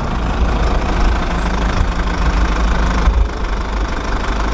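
Large truck engine idling steadily: a low rumble with a hiss above it.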